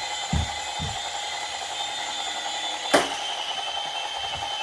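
Toy remote-control helicopter's small electric motor and rotors whirring steadily, with a few low thumps near the start and a sharp knock about three seconds in as it comes down onto the wooden floor, rotors still spinning.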